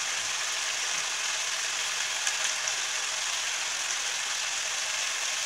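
Chicken karahi sizzling steadily in oil in a non-stick frying pan on the stove: a fine, even hiss.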